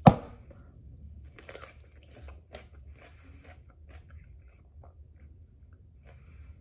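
A bite into a whole raw cucumber with one loud crunch at the start, then quieter crunching and mouth clicks as it is chewed.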